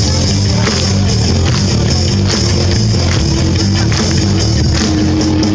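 Live rock band playing loudly through a PA: electric guitar, bass and drum kit, with a steady beat.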